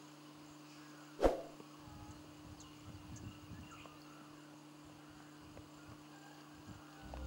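Quiet room tone with a steady low hum, broken by a single sharp knock about a second in and faint soft rustling after it. Flute music begins right at the end.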